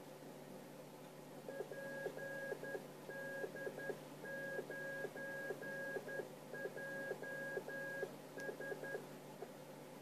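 Morse code from an ATtiny85 call-sign generator: one high beep tone keyed on and off in five groups of dots and dashes that spell the call sign PD9JS, ending on three quick dots. A soft click comes with each key-down, and a steady low hum runs underneath.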